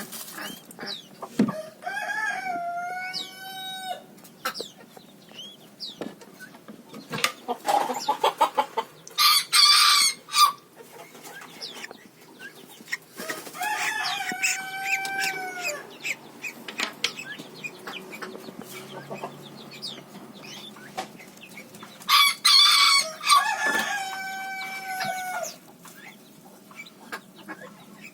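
A rooster crowing three times, each crow about two seconds long and held steady, roughly ten seconds apart, with short harsh calls and small cheeps in between.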